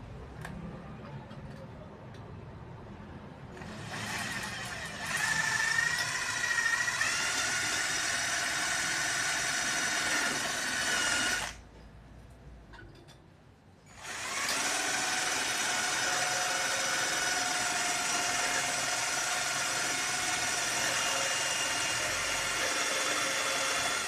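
A small electric motor runs twice with a high whine. The first run climbs in pitch before cutting off suddenly; the second, about ten seconds long, holds a steady pitch.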